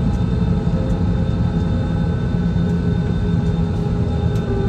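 Steady cabin noise inside an Airbus A320-200 airliner: a low rumble with a few steady hums running underneath.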